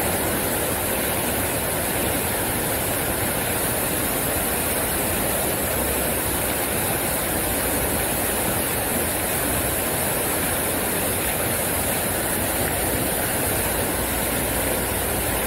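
Fountain water pouring from the rim of a raised bowl into the pool below: a steady, even rushing splash.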